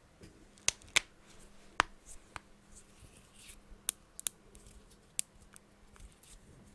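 Knuckles cracking close to the microphone: a string of sharp, irregular pops, about eight or ten of them, the loudest three in the first two seconds.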